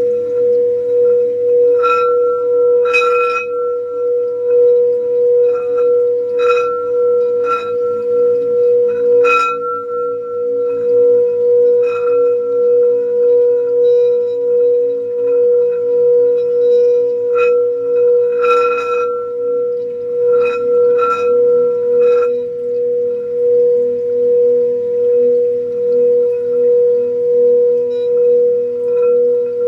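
Singing bowl ringing a steady, sustained tone with a slow pulsing wobble. It is struck about a dozen times in the first two-thirds, each strike bringing out brighter, higher ringing tones.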